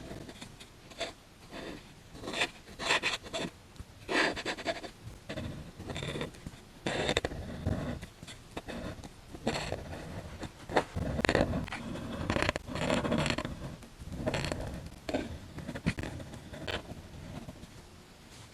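Close-miked painting strokes on paper, an irregular run of soft scraping and scratching strokes of varying length.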